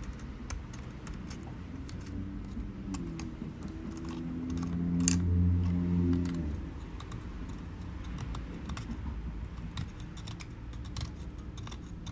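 Small metal tool scraping old adhesive off an iPhone 11's frame, with many irregular sharp clicks and ticks. A low steady hum comes in a few seconds in and cuts off about halfway through.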